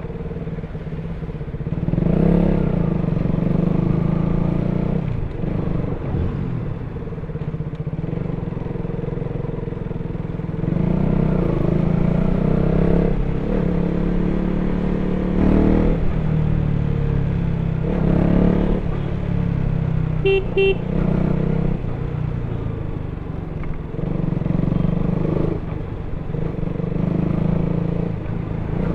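KTM RC 200's single-cylinder engine through its stock exhaust while riding, the throttle opened and eased off several times so the engine note swells and drops. A horn beeps twice briefly about two-thirds of the way through.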